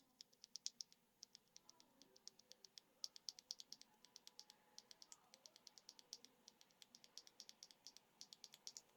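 A single ShuangCi advanced tactile mechanical keyboard switch (PC housing, nylon stem, lightly factory-lubed) pressed and released over and over by hand, giving a quick run of faint, crisp clicks with short pauses.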